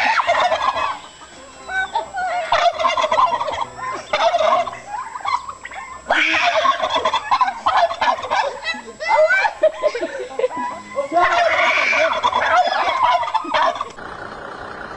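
Birds calling in loud bursts of rapid, warbling calls, four bursts in a row, with a quieter, different sound after a cut near the end.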